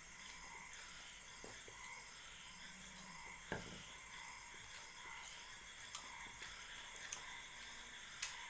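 Faint eating sounds: scattered soft clicks and taps from hands tearing luchi and scooping food on steel plates, and from chewing, the sharpest about three and a half seconds in, over a steady background hiss.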